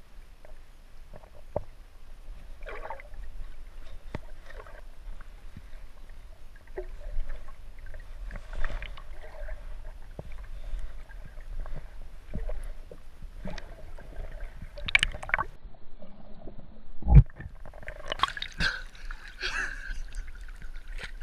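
Muffled underwater sound picked up by a submerged camera: a low water rumble with scattered clicks, knocks and gurgling. About three-quarters of the way through there is a sharp knock as the camera comes up through the surface, followed by splashing.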